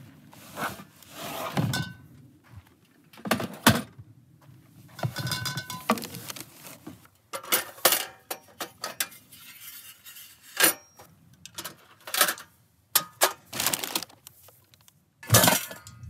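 Camp cooking gear being handled from a plastic tote bin on a wooden picnic table: plastic bags rustling, with irregular knocks and clinks as a portable butane stove and a small pot are lifted out and set down.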